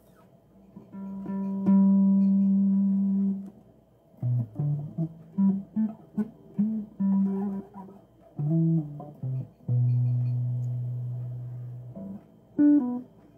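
Bass guitar played solo: a held note, then a quick run of short plucked notes, then a long low note left to ring and fade out, with a couple of short notes near the end.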